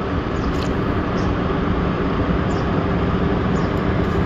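Steady low drone of a passing river vessel's engine, an even hum that holds level throughout, with a few faint high ticks over it.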